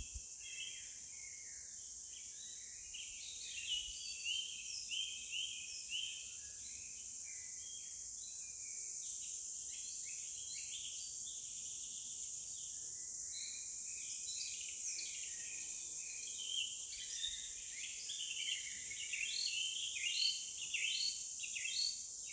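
Forest birds chirping, many short notes from several birds overlapping, thinning out for a few seconds in the middle and busiest near the end, over a steady high insect drone.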